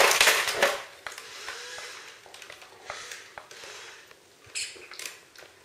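Czechoslovakian wolfdog puppies scrabbling at a plastic toy car on a tiled floor: scattered clicks and knocks of claws and plastic, after a loud noisy burst in the first second.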